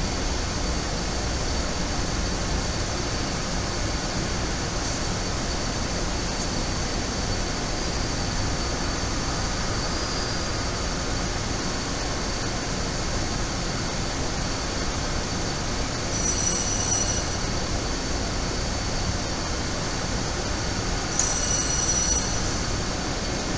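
Steady, dense machinery noise of a metal-strip rolling-mill line running, with a thin steady high whine throughout. A brief high-pitched squeal comes twice, about two-thirds of the way through and again near the end.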